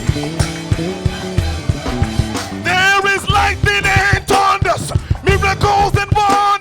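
Live gospel praise band playing a driving beat with drums and bass. A voice comes in singing about two and a half seconds in and carries on over the band.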